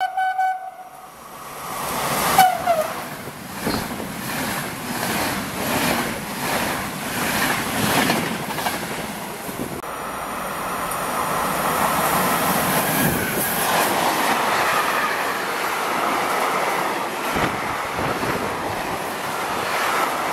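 Trains passing through a station. A horn sounds at the very start and again briefly about two seconds in with a falling pitch. The wheels clatter rhythmically over the rail joints, a bit under two beats a second, and from about ten seconds in a freight train of tank wagons rushes steadily past close by.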